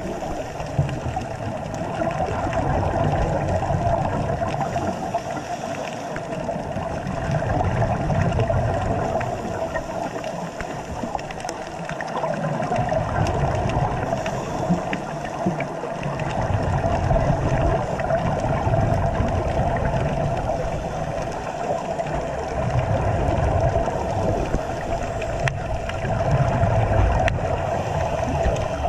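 Underwater ambient noise heard through a waterproof camera housing: a steady muffled hum with a low rumble that swells and fades every few seconds.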